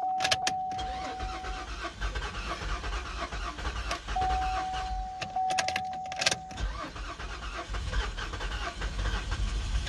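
A car engine cranking on its starter in two long attempts without catching, with a steady electronic chime tone before the first attempt and between the two. The engine will not start, which the mechanic puts down to a clogged catalytic converter pushing compression back into the engine.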